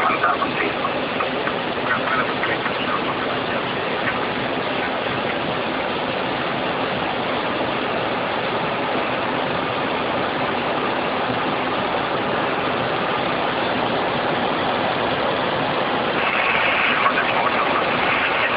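Steady rushing noise inside an Embraer ERJ145 jet's cockpit in flight: airflow and engine noise as one even roar, growing slightly louder near the end.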